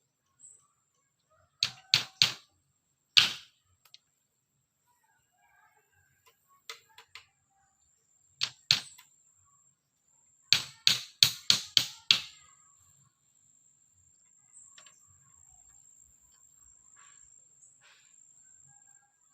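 Sharp blows of a tool striking bamboo. There are three quick strikes about two seconds in and one more soon after, two strikes past the middle, then a fast run of six at about three a second.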